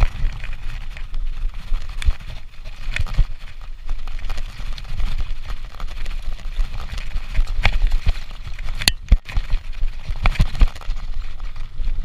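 Mountain bike rolling fast over a grassy and dirt trail: a constant low rumble with irregular clicks and knocks as the bike rattles over bumps, a sharper knock about nine seconds in.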